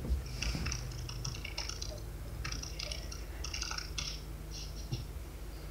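Typing on a laptop keyboard: quick runs of key clicks broken by short pauses.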